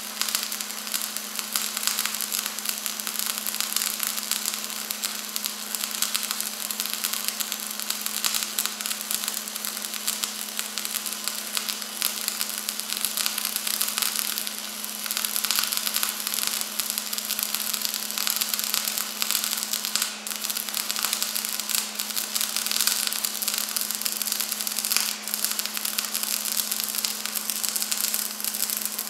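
MIG welding arc from a Miller wire-feed welder running 0.035 in. wire on a vertical-up weld in steel plate. It crackles and sizzles continuously, with a steady low hum underneath.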